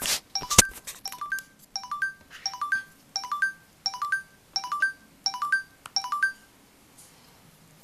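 HP iPaq 2200 Pocket PC's built-in speaker playing its self-test sound, a short three-note rising electronic chime repeated about every 0.6 seconds. It stops about six seconds in as the test is confirmed. A few loud knocks sound near the start.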